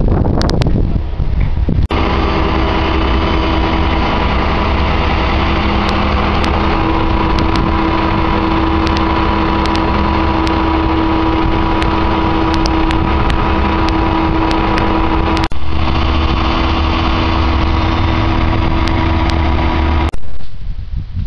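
Wheel loader's diesel engine running steadily at idle. It breaks off sharply once about two-thirds of the way through, resumes, and stops just before the end.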